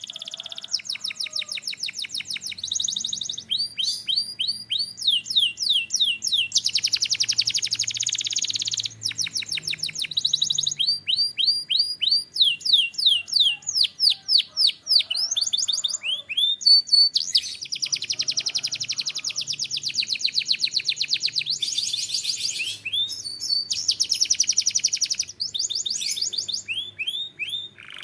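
Domestic canary singing a continuous song of rapidly repeated notes, with fast rolling trills and sweeping whistled syllables. The phrase changes every second or two.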